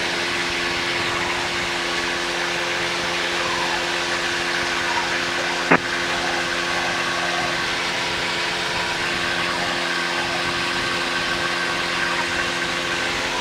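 Steady drone of an American Champion Decathlon's piston engine and propeller in flight, heard inside the cockpit. A single sharp click cuts in about halfway through.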